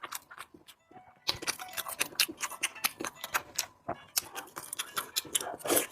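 Close-miked eating sounds from a mouthful of spicy pork rice: rapid, irregular wet clicks and smacks of chewing, sparse at first, then dense from about a second in, with a brief pause before the end.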